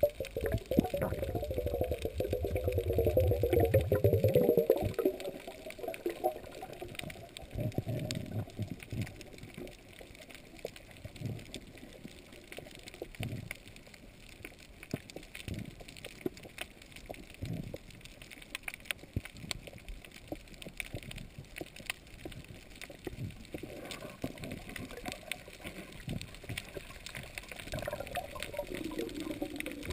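Underwater reef sound: a steady scatter of fine crackling clicks with short swells of moving water. Louder rushing and bubbling comes in the first few seconds and again near the end, where the diver breathes out bubbles beside the snorkel.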